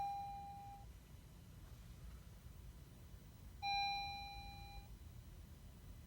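A 2017 Honda Civic's electronic warning chime: a single clear ding that rings and fades over about a second, repeating about every four seconds, over a low steady rumble.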